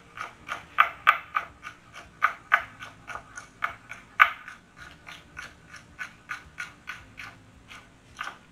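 Chef's knife slicing a green bell pepper into julienne strips, each stroke ending in a sharp tap on the cutting board, about three cuts a second in a steady rhythm.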